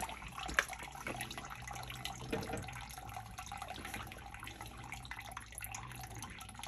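Water trickling and dripping into a sump pit from the drain tile while the pump is idle between cycles, with a faint steady low hum under it and a sharp tick about half a second in.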